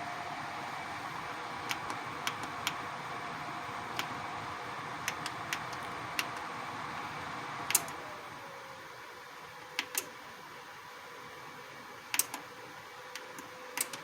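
Twin Star infrared tower heater's blower fan running with a steady whoosh and faint hum, with a series of sharp clicks from its control buttons being pressed. A little past halfway the fan drops to a lower speed: the whoosh quietens and the hum glides down in pitch.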